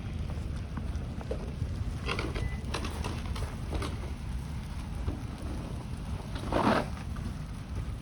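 Wind buffeting the microphone in a snowstorm, a steady low rumble, with footsteps crunching in snow at irregular intervals and one louder crunch near the end.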